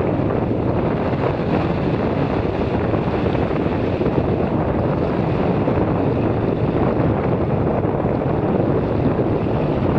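Steady wind noise on the microphone over shallow surf washing at the water's edge.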